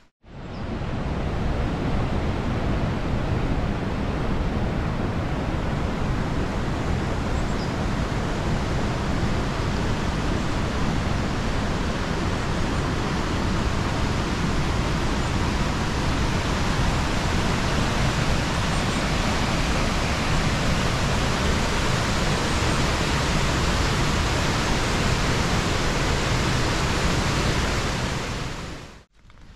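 Rushing water of a mountain stream tumbling through a rocky gorge, a steady, even rush. It fades in at the start and fades out near the end.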